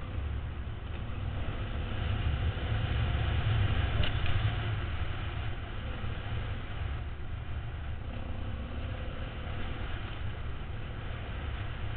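Dual-sport motorcycle engine pulling on a dirt track, heard from a helmet camera with heavy wind rumble. It is loudest about two to five seconds in, then eases off.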